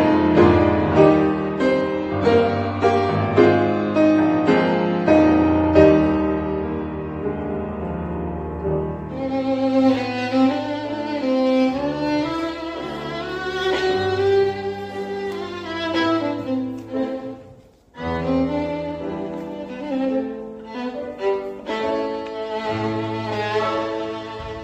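Piano and violin playing classical-style music. The piano plays alone at first, and the violin enters about a third of the way in with a sustained, gently wavering melody. The music breaks off briefly about three-quarters in, then resumes.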